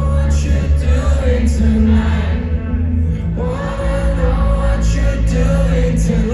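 Live pop band performing, a singer holding long notes over the band, with a short break in the vocal about halfway through.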